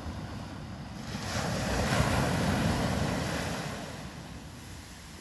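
Small sea waves breaking and washing up a sandy beach; one wash swells about a second in and fades away near the four-second mark.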